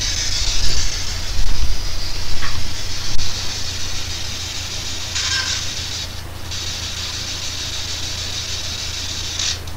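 Steady static hiss over a low electrical hum. There are a few low thumps in the first three seconds, and short louder surges of hiss about five and six seconds in and again near the end.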